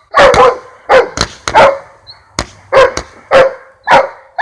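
A dog barking repeatedly, about nine loud barks roughly half a second apart.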